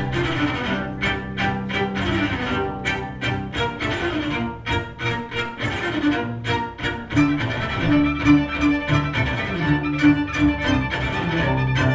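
Amplified string quintet of violins and cellos playing a fast, dance-like movement: short, rhythmic bowed strokes over held low notes.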